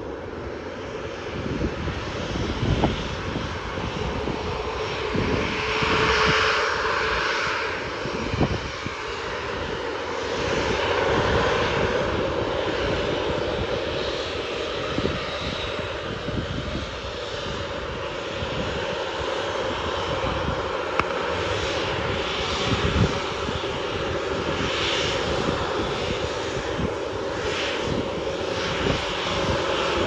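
Boeing 737 airliner's jet engines running at low taxi power as it turns and rolls slowly on the runway: a steady rushing engine noise with a constant hum-like tone, swelling slightly now and then.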